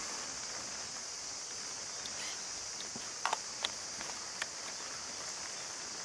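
Rain falling, a steady high hiss, with a few light taps about halfway through.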